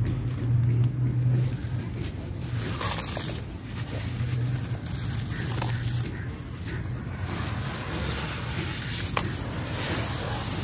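Hands sloshing through and crumbling wet, gritty sand-cement chunks in shallow water in a metal basin: a continuous wet scraping and splashing with a few small clicks of grit. A low steady hum runs underneath, strongest in the first second or so.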